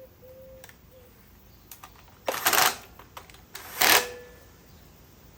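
Two short bursts of rustling and scraping, with a few small clicks around them, as parts and tools are handled and moved about. The bursts come about two and a half and four seconds in.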